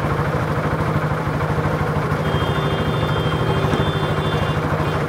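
Hero Honda Glamour's single-cylinder four-stroke engine running steadily at a low, even speed, turning the wheel at about 20 km/h. A faint high whine sounds over it through the middle.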